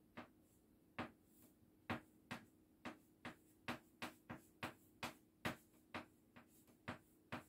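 Chalk tapping on a blackboard as a Chinese character is written stroke by stroke: a string of short, sharp clicks, irregularly spaced at about two or three a second.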